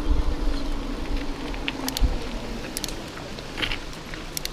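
Mountain bike ridden on a dirt trail, heard from a camera mounted on the bike or rider: wind and tyre rumble with a steady hum and a few sharp clicks and rattles. The rumble eases toward the end.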